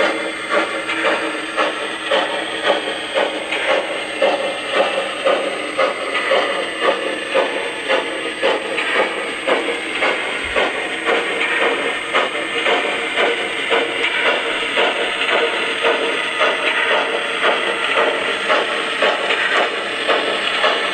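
O scale model steam locomotive's onboard sound system playing a steady, rhythmic exhaust chuff, about two beats a second, as the engine runs along the layout.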